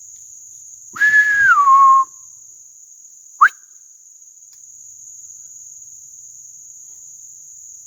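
A person's loud mouth whistle, used as a Bigfoot call: one note held for about a second and then dropping in pitch, followed a second and a half later by a short upward whistle. Crickets keep up a steady high trill underneath.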